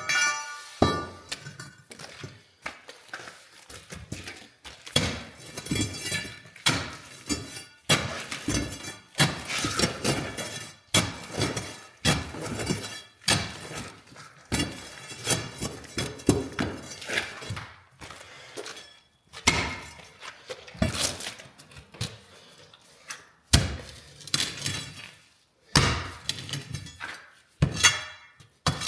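Sawn concrete slab being broken out: an irregular series of heavy knocks and crashing, clinking breaks of concrete chunks, about one or two a second.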